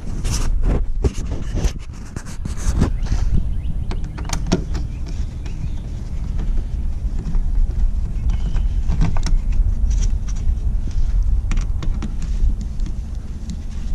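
Screwdriver and metal clicking and scraping as the bolts holding a 2015 GMC Yukon taillight assembly are worked out, in short bursts that are busiest in the first few seconds, over a steady low rumble.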